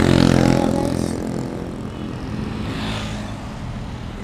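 Motorcycles passing close by on the road. The loudest passes right at the start, its engine note fading over the next second or so, and a second one swells and passes about three seconds in, over a steady low engine hum.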